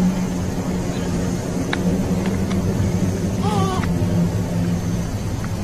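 A steady low droning hum, with a short wavering sound about three and a half seconds in and a few faint clicks.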